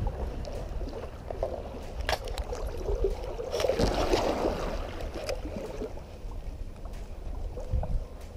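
River water sloshing and splashing around an angler wading in a shallow river, with a louder splash about four seconds in, over a low wind rumble on the microphone.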